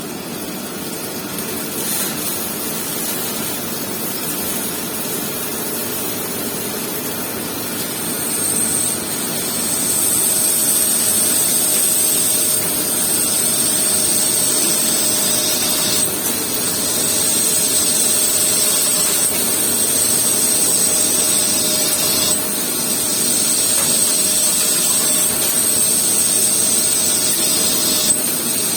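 CNC machine running: a steady hiss with a high-pitched whine that comes in about eight seconds in and gets louder a couple of seconds later.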